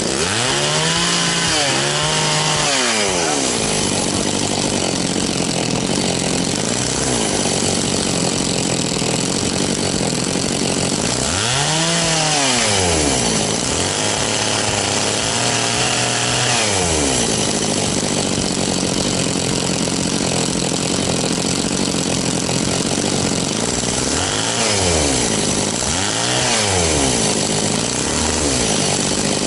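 Echo CS-670 two-stroke chainsaw running on the bench, idling steadily and blipped up to high revs and back down several times, twice in quick pairs. It is being checked because its high-speed setting sounds like it could need a little tuning.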